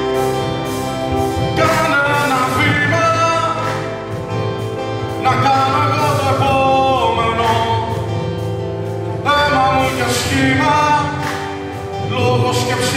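A man singing into a microphone with a live band accompanying him; the sung line wavers and bends in long held notes over a steady low bass part.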